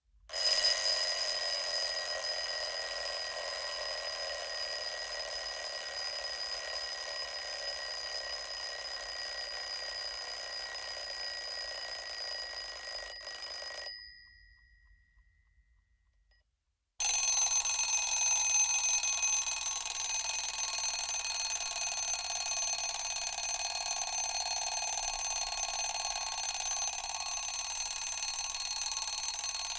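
Mechanical alarm clock bell ringing continuously, a steady metallic ring. It stops suddenly about 14 seconds in, and after about three seconds of silence a second ringing starts, with a slightly different tone.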